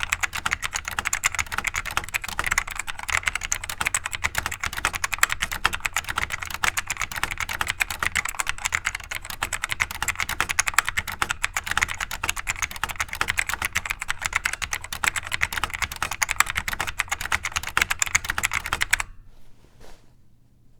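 Fast continuous typing on a vintage Costar CSK-7102N keyboard with D-TRNS switches, a clicky Alps.tw Type OD1 variant, giving a dense stream of keystroke clicks. The click is light and inconsistent, which the owner suspects comes from wear or a design flaw. The typing stops about 19 seconds in.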